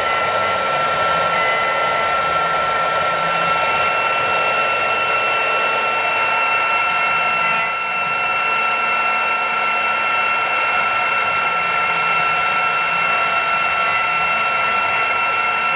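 Air-cooled HSD spindle of a CNC router running with a steady high-pitched whine while its bit carves a wooden workpiece turning on the rotary axis, with a constant hiss of wood being cut under it.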